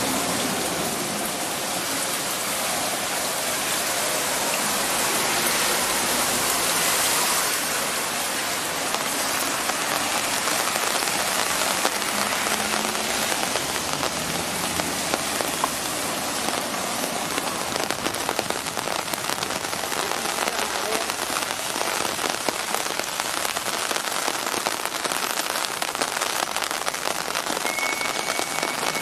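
Heavy rain pouring onto a flooded street and paving, a steady dense hiss of drops splashing into standing water.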